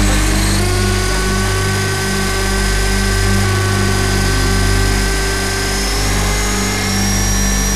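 Align T-REX 500 electric RC helicopter's motor and rotor running up on the ground, heard from the onboard camera inside the scale Black Hawk fuselage: a steady whine that slowly rises in pitch over a heavy low drone.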